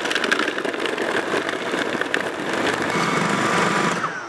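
Food processor motor running steadily, its blade churning frozen banana chunks with sour cream and honey into a thick purée; it cuts off about four seconds in.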